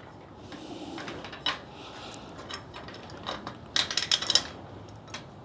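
Metal parts of a garden cart being handled and fitted together during assembly: scattered light clicks and clinks, with a quick run of clicks about four seconds in.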